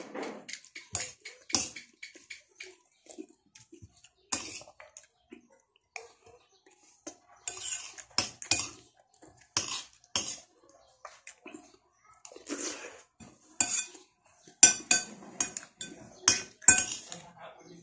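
Metal spoon clinking and scraping against a ceramic plate while eating, in irregular sharp clinks that are loudest near the end.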